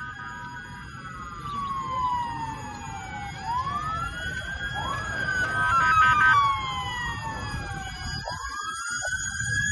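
Several emergency-vehicle sirens wailing at once, their pitches rising and falling out of step with one another, louder around the middle, over a low rumbling background noise.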